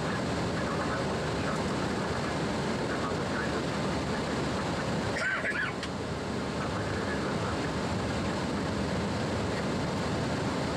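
Steady rushing cockpit noise of a Boeing 767-300ER taxiing off the runway after landing, with a brief dip in the noise about halfway through.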